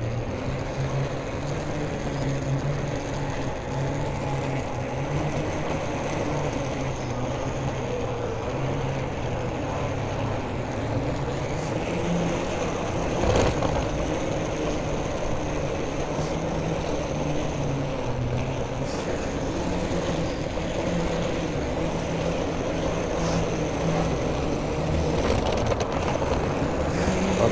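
City street ambience: a steady low hum of road traffic and urban noise, with one brief sharp knock about halfway through.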